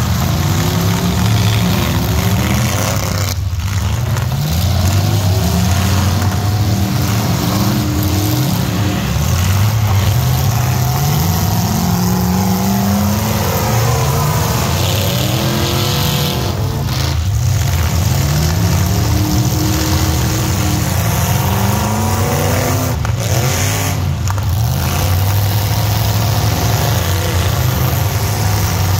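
Engines of several demolition derby pickup trucks revving up and down at once, their pitch rising and falling over and over as they accelerate and back off.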